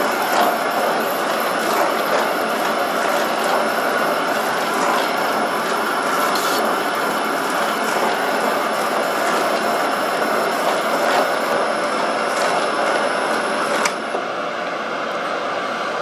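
Metal lathe running under power while cutting a thread on a brass part: a steady mechanical clatter with a thin high whine and light ticking. About 14 s in, the whine cuts off and the noise eases a little.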